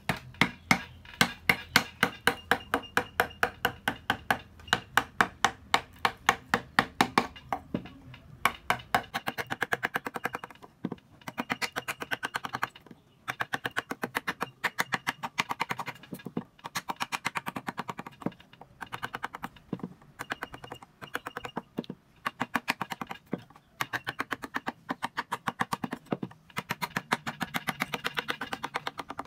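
A wooden mallet tapping a carving chisel into wood: steady strikes, about three or four a second at first, then quicker runs of light taps broken by short pauses.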